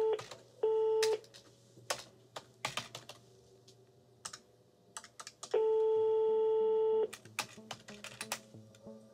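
Telephone busy tone after the caller hangs up: short even beeps at one pitch, two of them in the first second or so. Then computer keyboard keys and desk-phone buttons clicking, and about five and a half seconds in a single longer tone of about a second and a half, a ringback as a new call rings out.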